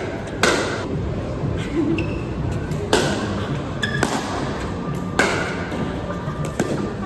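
Pickleball rally: paddles striking the plastic ball in sharp pops, several of them a second or more apart, some with a short ringing ping.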